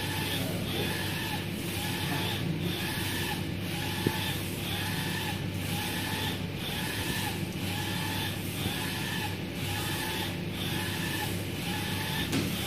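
UV flatbed printer printing: the print head carriage shuttles back and forth across the box, a whir that rises and falls about once a second over the machine's steady hum. There is a single short click about four seconds in.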